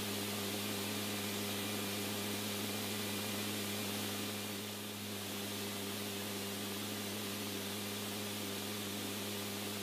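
Steady hiss with an even low hum underneath, easing slightly about halfway through.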